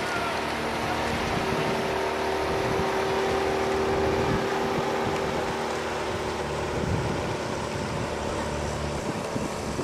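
Wind buffeting the microphone over the steady hum of a motor launch's engine.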